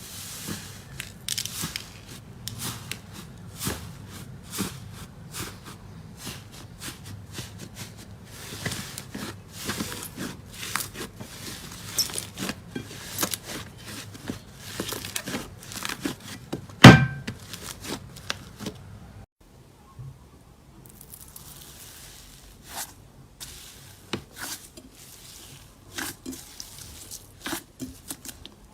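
Slime being squeezed, poked and stretched by hand, giving a dense run of small crackling, popping and sticky clicks. About 17 seconds in there is one much louder knock, and the sound briefly drops out a couple of seconds later before the crackling resumes.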